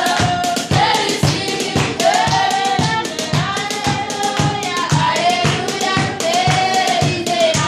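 A small group singing a worship song together, with hands clapping a steady beat of about three to four claps a second.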